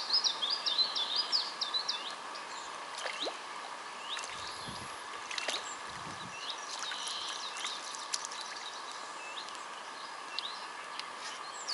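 A small songbird singing a quick, repeated high phrase for about the first two seconds, then scattered short chirps and calls over a faint steady outdoor background.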